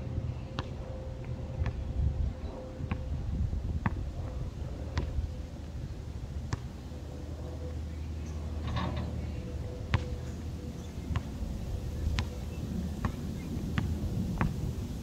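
A basketball bouncing on an outdoor concrete court in scattered single bounces, each a sharp knock, with a longer clatter about nine seconds in, over a steady low rumble.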